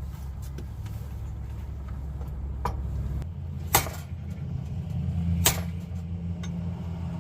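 Three sharp hammer blows on steel, a lighter one followed by two hard ones over about three seconds, driving out a seized pin on a truck's front axle. A steady low hum runs underneath.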